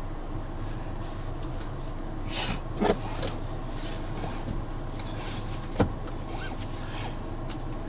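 Steady low hum inside a car's cabin. Over it there are a few sharp clicks and knocks around two and a half to three seconds in, and a single sharp knock near six seconds.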